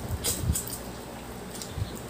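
Close-up eating sounds from a seafood boil: short crackles and clicks of shrimp and crab shells being peeled and chewed, bunched in the first second, with a soft thud near the end.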